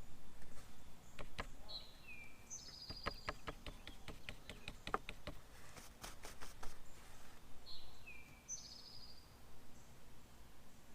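A songbird sings the same short phrase twice, a few seconds apart: a couple of falling whistled notes and then a buzzy trill. Under the first half runs a string of sharp clicks and taps.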